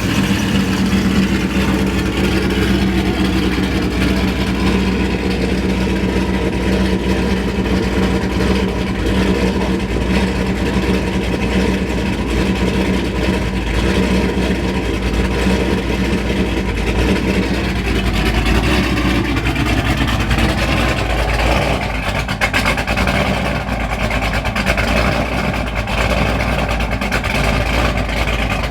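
Cammed 6.4-litre HEMI V8 of a Dodge Scat Pack running steadily just after its first start on a new tune, its note dropping lower about twenty seconds in.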